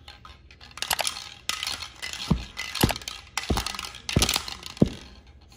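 Plastic toy rattle ball shaken and tossed back and forth, its loose pieces rattling inside in about six separate bursts, each with a dull thump as the ball is grabbed or knocked.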